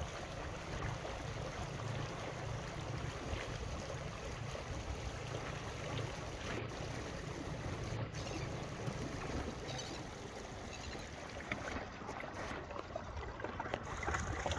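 Steady wind across open water, rumbling on the microphone, over the wash of small waves on a choppy lake; the low rumble eases a little near the end.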